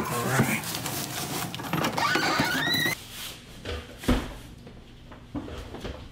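Rustling and handling noise as a cardboard shipping box is carried, with a couple of short rising squeaks. About four seconds in, the box is set down on a table with a dull thump, then a few light taps.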